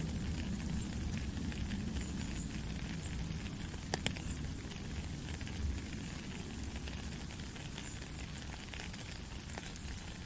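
Steady rain falling, a dense hiss of fine drop ticks over a low rumble, with a couple of sharper drip clicks close together about four seconds in.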